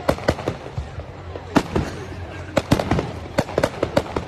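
Fireworks display: aerial shells bursting and launching in a quick, irregular run of sharp bangs and pops, a dozen or more, bunched in clusters.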